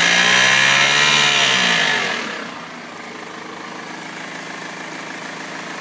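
BMW 320d E46's four-cylinder diesel engine revving briefly, its pitch falling back about two seconds in, then idling steadily. It makes the tractor-like noise that the owner finds abnormal.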